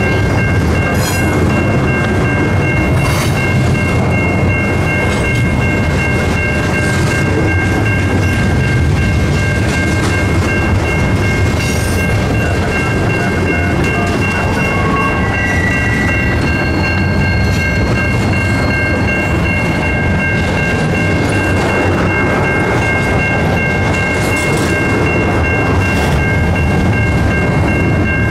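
Double-stack container well cars rolling past, a steady rumble of steel wheels on rail with occasional sharp clicks. Over it, the level-crossing warning bell keeps up a steady high ringing.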